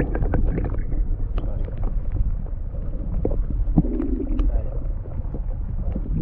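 River water heard from under the surface of a shallow stream: a muffled, steady low rumble of flowing water with scattered clicks and ticks, with a brief low hum about four seconds in.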